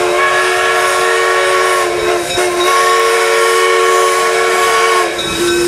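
Steam whistle blowing a long chord of several notes at once, with a short break about two seconds in. Near the end it drops to a single lower note.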